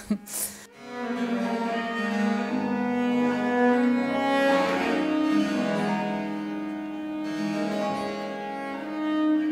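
Baroque trio music: a viola da gamba bowing sustained melodic notes, accompanied by theorbo and harpsichord. The music comes in just under a second in, after two short clicks.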